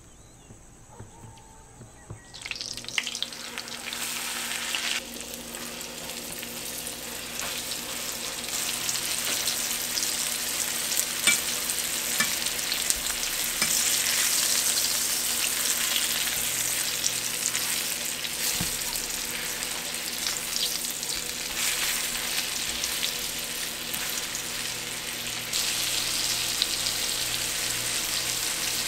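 Flour-dredged veal shanks searing in hot oil in a stainless steel pan: a steady frying sizzle that starts abruptly about two seconds in.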